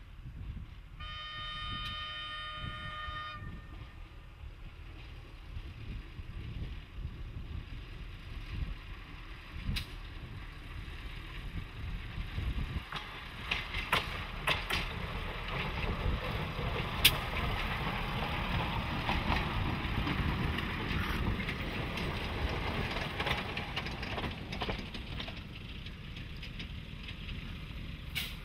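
PD1 narrow-gauge draisine sounding one horn blast of about two seconds, about a second in, then running past on the narrow-gauge track. Its engine and wheels grow louder toward the middle, with scattered sharp clicks from the wheels on the rails, and then fade.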